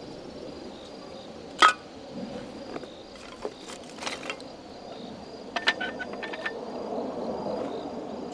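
Scattered knocks and clicks of firewood and gear being handled, with one sharp metallic clink about one and a half seconds in.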